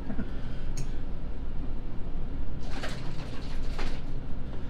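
Dinner-table sounds over a steady low hum: a couple of light cutlery clicks near the start, then short rustling, shaking sounds a little over halfway through as a bottle of zesty Italian dressing is picked up.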